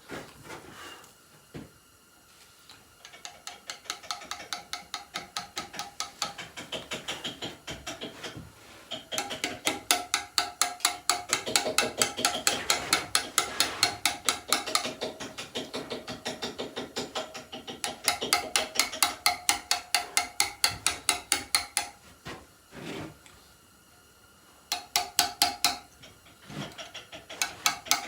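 Mallet striking a steel chisel in quick, steady taps, about four to five a second, cutting letters into a stone headstone. The taps pause briefly a couple of seconds in and again near the end.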